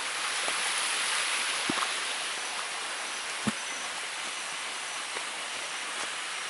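Steady high hiss of tropical jungle background, with a couple of footsteps knocking on the leaf-covered trail, about a second and a half apart.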